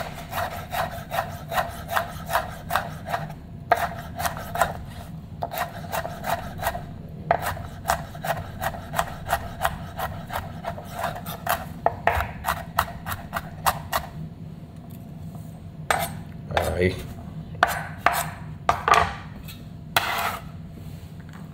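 Kitchen knife dicing ají pepper finely on a cutting board: quick chops about four a second with a few short pauses, then a handful of slower, longer strokes near the end.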